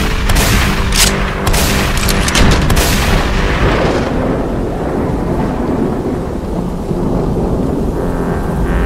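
A rapid volley of shotgun blasts for about three seconds, followed by a low rumble that slowly dies away. Music comes back in near the end.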